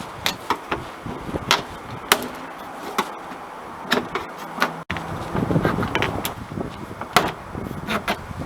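Plastic trim-panel clips on a 1998 Ford Windstar being pried loose: a series of sharp, irregular clicks and cracks with rustling of the panel between them.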